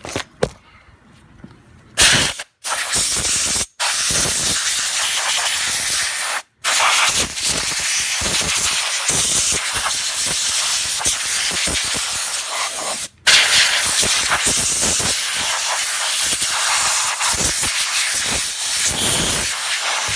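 Compressed air blowing out of a nozzle to clear debris: a loud, steady hiss that starts about two seconds in and is broken by four brief pauses.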